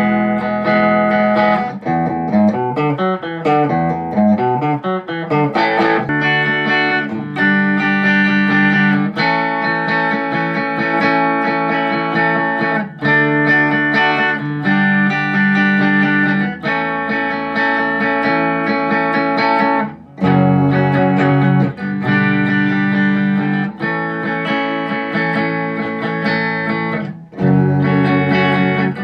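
Squier electric guitar played through an M-Vave MK-300 multi-effects preset, recorded raw: chords strummed and let ring, changing every second or two. About two seconds in, for a few seconds, the pitches slide up and down against each other.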